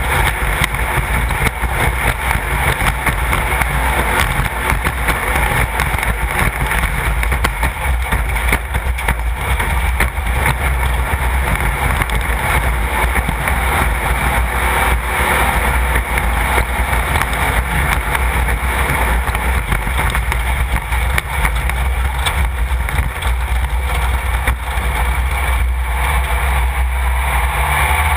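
The 1600 cc air-cooled VW engine of a 1/2-1600 class off-road race car running steadily, a constant low drone under a dense noisy wash.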